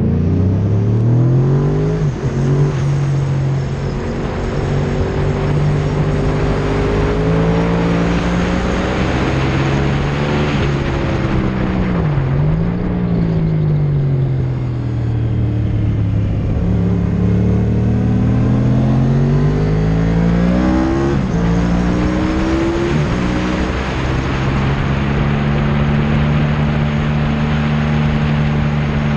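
Motorcycle engine heard from onboard at speed with wind rushing over the microphone. The pitch climbs and drops sharply at several gear changes, falls for a few seconds midway as the bike slows, then climbs again and holds steady near the end.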